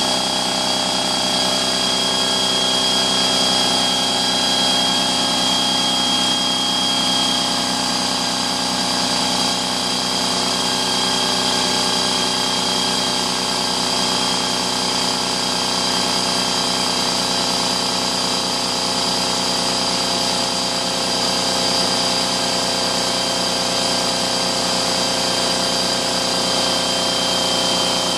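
Husky 33-gallon air compressor running steadily as it fills its tank from empty toward 50 PSI: an even mechanical drone with a thin high whine above it.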